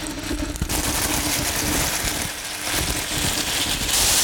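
Beef roulade bundles sizzling in hot olive oil in a frying pan, bottom side down for searing. The sizzle comes in less than a second in and grows louder near the end.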